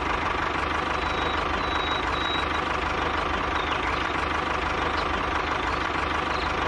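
Motor of a DIY mini tractor running steadily: a continuous mechanical hum with a fixed pitch and a low, even pulse.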